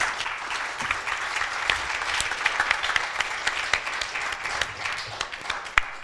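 Audience applauding, a dense patter of many hands clapping that thins out near the end.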